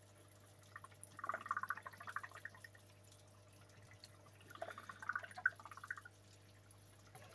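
Faint trickling and dripping of water in an aquarium, in two short spells about a second and four and a half seconds in, over a low steady hum.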